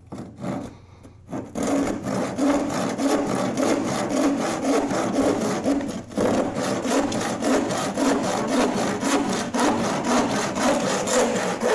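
Hardware-store crosscut hand saw cutting across a board. A few light strokes start the kerf, then steady, rapid back-and-forth strokes begin about a second and a half in, with one brief pause near the middle.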